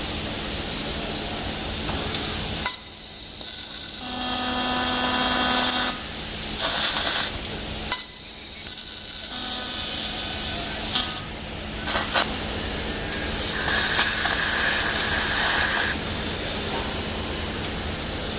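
Fiber laser CNC cutting machine cutting 25 mm thick plate: a steady hiss of assist gas over a machine hum, with a whining tone that comes and goes and several sudden sharp cracks.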